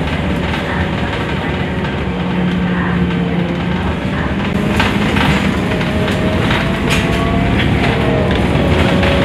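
Cabin noise inside a Scania articulated bus under way: a steady rumble of engine and road with a few held tones that drift up and down. From about halfway through, sharp clicks and knocks from the cabin fittings join in.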